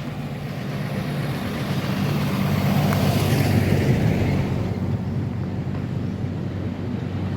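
A motor vehicle engine running steadily, with the hiss of a passing vehicle swelling and fading about three seconds in.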